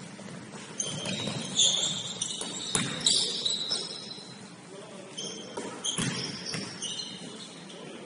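Basketball game on an indoor court: the ball bouncing several times, the sharpest thuds about three seconds and six seconds in. Short high squeaks, typical of sneakers on the floor, and players' voices sound in between.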